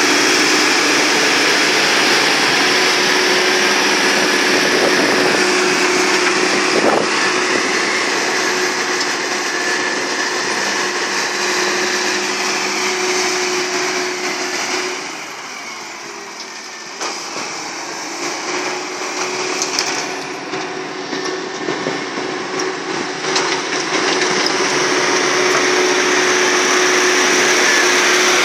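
International 530 excavator's engine running steadily with a sustained whine. It drops quieter for several seconds a little past halfway, then comes back up, with a few short knocks along the way.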